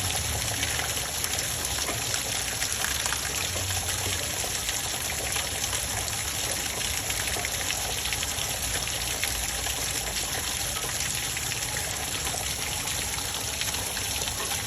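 Water running and splashing steadily, with no breaks or changes.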